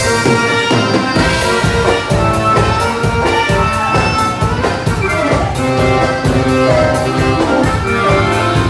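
Live dance band playing gaúcho regional dance-hall music, with melodic instruments over a steady, even beat.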